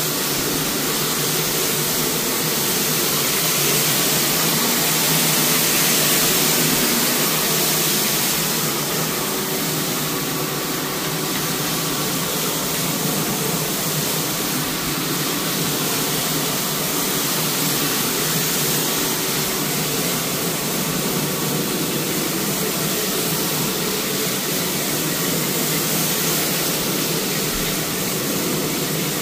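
Rotary carpet-cleaning floor machine (175 rpm type) running steadily, its motor humming as the spinning pad scrubs the carpet.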